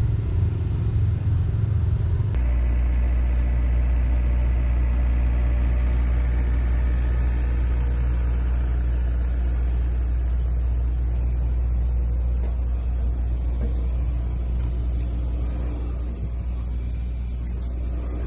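A steady low mechanical drone, like running machinery, with no rise or fall in pitch. About two seconds in it changes abruptly to a smoother, deeper hum.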